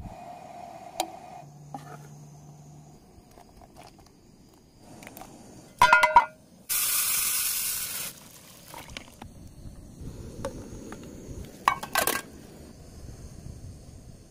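Water poured in a steady stream onto rice in an aluminium mess tin, lasting about a second and a half. Before and after it the metal tin clanks and clinks sharply.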